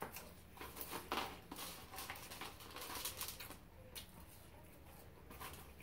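A person chewing a mouthful of fries and cheeseburger close to the microphone: a quick run of small wet smacking and clicking mouth sounds for the first few seconds, then a few scattered ones near the end.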